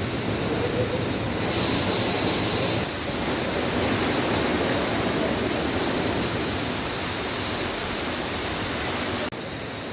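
Steady rush of falling water from a forest stream cascade, an even hiss with no breaks.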